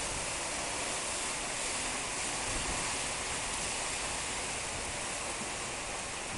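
Storm wind and rain making a steady, dense rushing hiss, with gusts buffeting the microphone as a low rumble.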